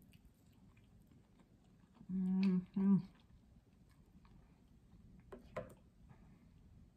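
A woman quietly chewing a mouthful of potato wedge, with a two-part hummed "mm-mm" about two seconds in and a couple of small mouth clicks near the end.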